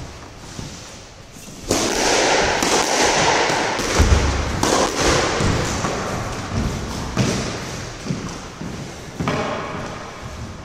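Squash ball thudding against the court walls and floor during a rally. From about two seconds in, a loud, steady noise begins and slowly fades.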